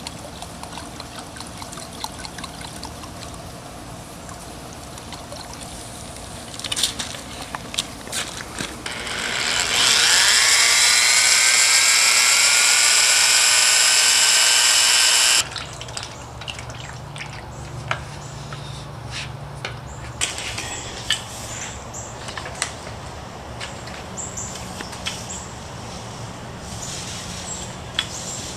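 Electric drill with a mixing paddle blending two-part epoxy primer. It speeds up with a rising whine about 9 seconds in, runs steadily and loudly for about six seconds, then stops abruptly. Scattered clicks and knocks of can handling come before and after it, over a low steady hum.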